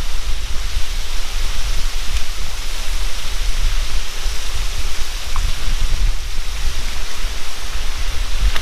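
Loud steady rushing noise with a deep, buffeting low rumble, the sound of wind hitting the microphone.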